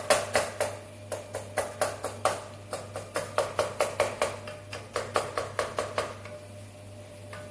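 A spoon knocking against a pot while the browning meat for a meat sauce is stirred and broken up: quick knocks with a short ring, about three or four a second, with two brief lulls.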